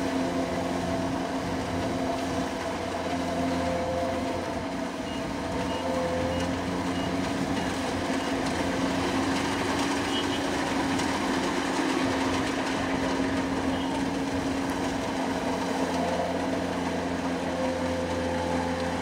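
Kubota combine harvester's diesel engine running steadily, a constant drone with several low hum tones. A faint run of short high beeps sounds about five seconds in.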